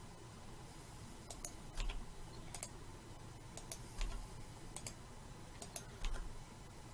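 Faint, scattered clicks of a computer mouse and keyboard in use. The loudest come about every two seconds and carry a low thump.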